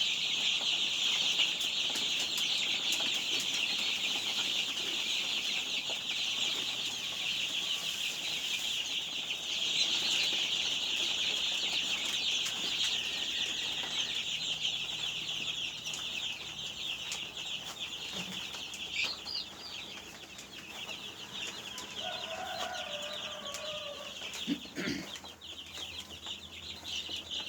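A brood of twelve-day-old chicks peeping continuously in a dense, high chorus that thins somewhat about halfway through, with a single knock near the end.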